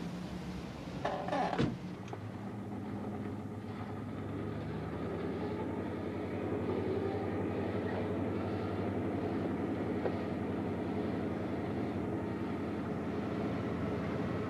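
A taxi's rear door shuts with a sharp clunk about a second and a half in. The cab's engine and road noise then run steadily, growing louder from about four to five seconds in as the cab drives off, heard from inside the cabin.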